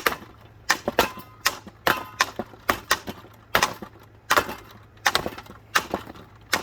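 Hammer blows striking a ceiling fan, about a dozen sharp hits in quick irregular succession, roughly one or two a second, some with a brief metallic ring.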